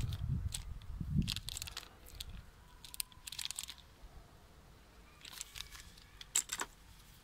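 Small clear plastic accessory bag crinkling as it is handled, in several short spells of crackling. There is a low rumble in the first second or so.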